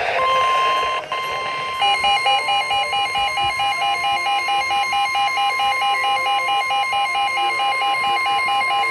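NOAA Weather Radio 1050 Hz warning alarm tone, one steady high tone announcing a flood warning. About two seconds in, a weather radio receiver's pulsing two-pitch alert beep joins it at about four beeps a second.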